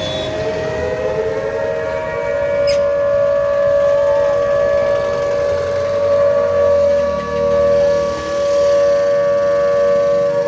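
Civil defence warning siren sounding an alert: a loud, steady held tone, with a second tone gliding slowly up and down beneath it.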